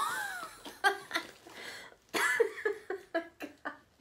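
A woman laughing through tears: a high wavering cry, then two runs of short, rhythmic, gasping bursts, the second starting about two seconds in.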